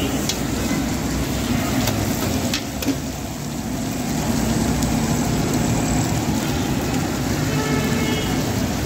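Cubes of beef liver sizzling in oil on a large flat griddle, a steady hiss over a low rumble, with a few sharp spatula clicks against the metal in the first three seconds.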